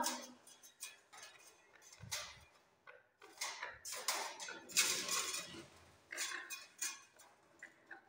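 Irregular metallic clinks and rattles from a wire parrot cage being handled.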